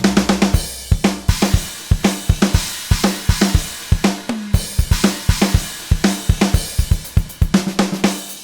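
Sampled drum kit from Steinberg's Groove Agent 5 virtual drummer playing a programmed groove: bass drum, snare, hi-hat and cymbals in a steady, busy rhythm.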